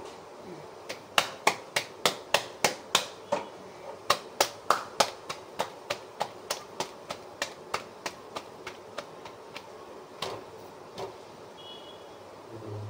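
Roti dough being slapped by hand from palm to palm to flatten it, a quick steady run of sharp pats about three a second. The pats grow softer about halfway through and stop about ten seconds in.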